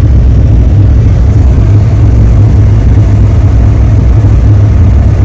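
Steady low rumble of a truck's engine and tyres, heard from inside the cab while driving.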